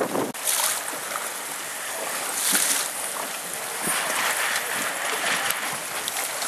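A low wind rumble on the microphone cuts off just after the start. Then sea water rushes and splashes around a boat moving through choppy water: a steady hiss with a few louder surges.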